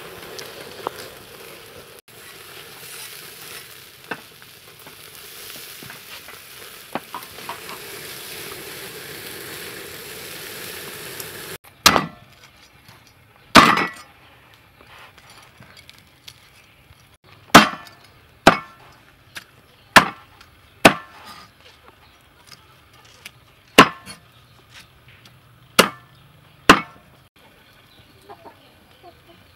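Duck pieces sizzling on a wire grill over hot charcoal, a steady hiss with a few small pops. About 12 s in this gives way to a cleaver chopping the grilled duck on a wooden board: about a dozen sharp, loud chops at an uneven pace.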